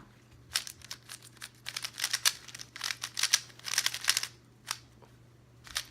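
YuXin Little Magic plastic speed cube being turned by hand: quick runs of sharp plastic clicks and clacks for the first four seconds or so, then a few single clicks.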